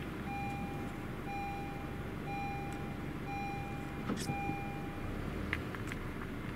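A vehicle's electronic warning beep repeating about once a second, six beeps in all, stopping about five seconds in, over a low steady rumble.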